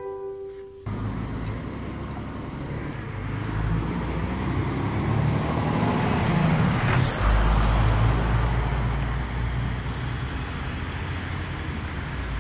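Road traffic: cars passing on a road, a steady rush of tyre and engine noise that swells toward the middle, with a short sharp hiss about seven seconds in.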